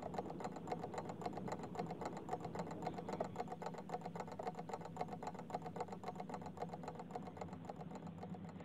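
Faint, rapid, evenly spaced clicking over a low steady hum.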